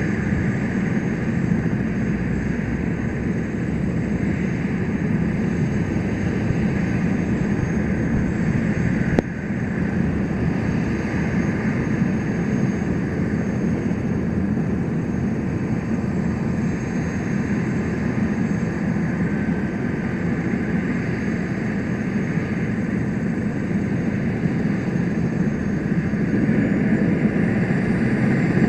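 Medflight medical helicopter running on the ground, a steady turbine whine over the engine and rotor noise. Near the end the whine steps up in pitch and the sound grows a little louder. There is a single short click about nine seconds in.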